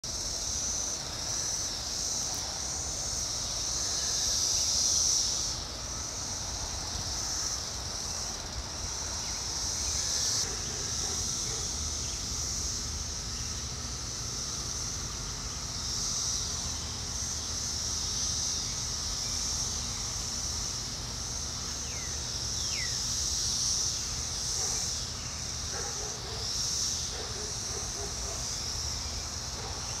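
A chorus of Brood X periodical cicadas: a continuous high-pitched buzzing that swells and fades every few seconds.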